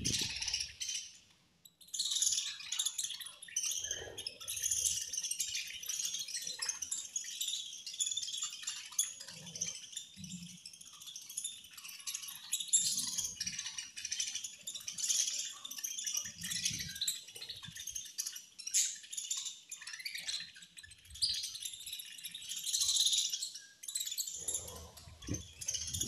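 A flock of budgerigars chirping and chattering continuously, a dense overlapping twitter that starts up about two seconds in after a brief lull.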